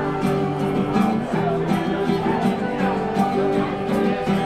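Music led by a strummed acoustic guitar, with held melody notes over it.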